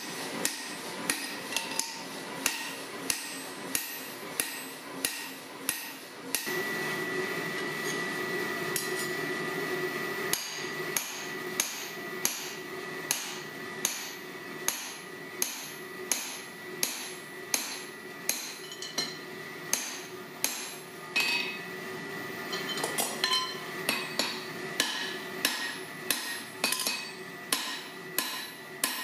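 Steady hand-hammer blows on a handled blacksmith's top tool, a punch, held on a red-hot steel claw-hammer head on an anvil. The strikes come about two a second, each a sharp metallic clink with a short ring. A steady hum joins underneath about six seconds in.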